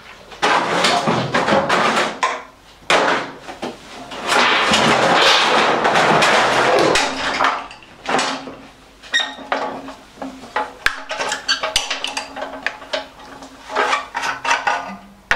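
Handling noise as a plastic can is set down and a push lawnmower is moved across a concrete floor: clattering and knocks, with a longer rough scraping noise in the middle. After that come scattered clicks and taps as hands work on the mower's engine cover.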